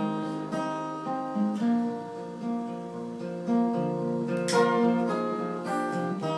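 Acoustic guitar strumming chords in an instrumental break of a song, with no singing.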